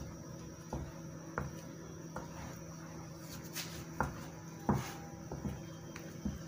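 Wooden spatula working thick risen yeast batter in a glass bowl, knocking the batter down: a handful of short, irregular knocks and scrapes as it strikes the bowl and slaps the dough.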